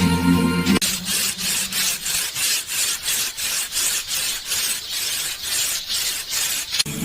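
A hand tool rubbing on wood in quick back-and-forth strokes, about three a second, consistent with a carving being rasped or sanded. The strokes start about a second in, cutting in over music, and stop just before the end.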